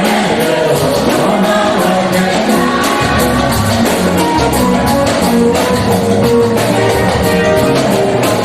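Church choir singing gospel music with live band accompaniment and a steady percussion beat; the bass comes in more strongly about three seconds in.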